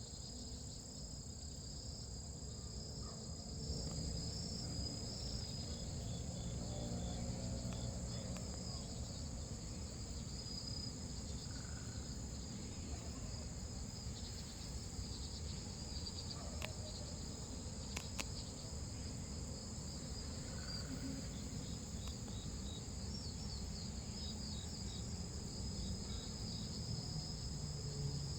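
Blackish cicada (Cryptotympana atrata, the largest cicada in Korea) singing: a loud, steady, high buzz that never breaks, over a low background rumble.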